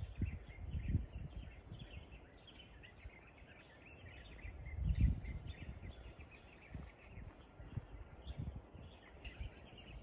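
Many small birds chirping in quick, scattered calls, over irregular gusts of wind rumbling on the microphone, the strongest about a second in and about halfway through.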